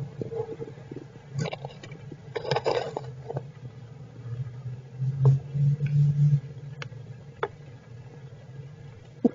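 Squirrels stirring in their shelter during heavy rain: scattered sharp taps, brief scratchy rustles about one and a half and two and a half seconds in, and a low rumble that swells loudest around five to six seconds in.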